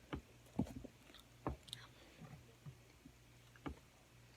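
Close-up eating sounds: chewing, with a few short, sharp clicks and taps about a second apart.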